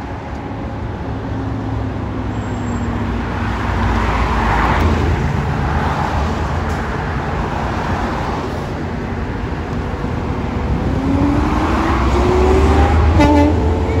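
Road traffic on a multi-lane road: vehicles passing in swells, with engine pitch falling at first and rising steadily near the end as a vehicle accelerates away.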